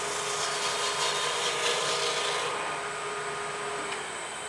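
A bowl gouge making a push cut into the hard outer skin of a kohlrabi spinning on a wood lathe: a dense scraping, rasping hiss over the steady hum of the lathe. The cutting stops about two and a half seconds in. The hum dips slightly near the end.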